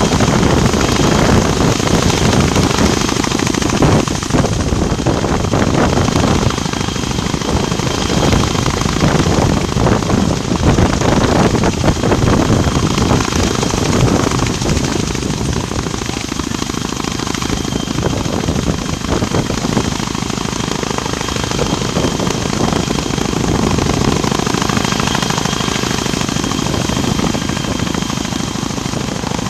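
CH-46E Sea Knight tandem-rotor helicopter hovering, its rotors making a loud, rapid, continuous chop with a thin steady high whine above it. It eases a little in loudness about halfway through.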